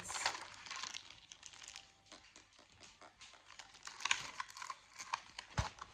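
Faint crinkling of plastic packaging with light clicks and taps as small items are handled, a few sharper clicks about four seconds in and near the end.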